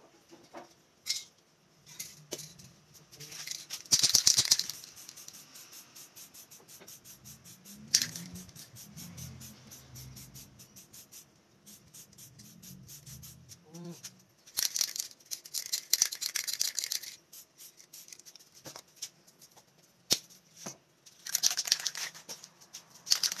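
Aerosol spray-paint can hissing in three bursts as paint is sprayed, with a rapid rattle of clicks between the first two, typical of the can being shaken to mix the paint.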